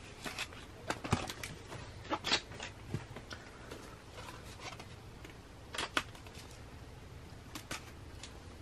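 A small cardboard mailer sealed with packing tape being handled and cut open with a blade: scattered short taps, clicks and scrapes of cardboard and tape, the sharpest about a second in, at two seconds and near six seconds.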